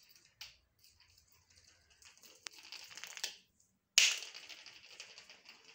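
A small ball thrown onto a terrazzo floor: a sharp knock about four seconds in, then a fading rolling rattle. Before it come faint scuffing and a single click.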